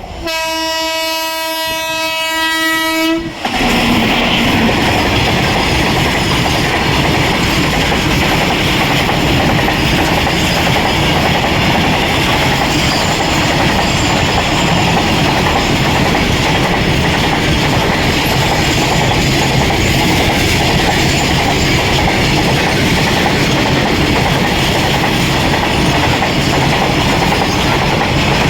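A WAG-9HC electric locomotive sounds its horn in one long blast of about three seconds. The locomotive and its string of petrol tank wagons then pass close by at speed, a loud steady rush of wheel and rail noise.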